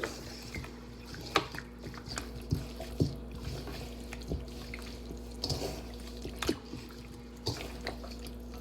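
Bare hands mixing raw chicken legs in a wet marinade: irregular squishes and slaps, about one a second.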